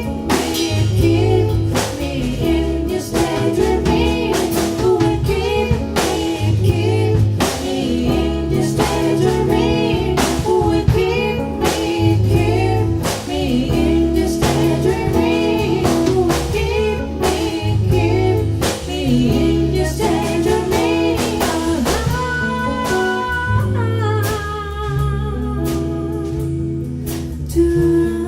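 Small live band playing a slow song: lead vocal or lead guitar lines over bass, guitar and drum kit. About 22 s in the playing shifts to long held notes.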